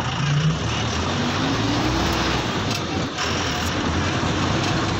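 Minibus engine and road noise heard from inside the cabin as the bus drives along, a steady rumble and hiss with the engine note climbing a little about a second in.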